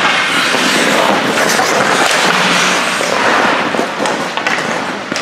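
Ice hockey game noise in the rink: a dense crackling hiss with many sharp clicks, the mix of skates on the ice, sticks and puck, and the crowd.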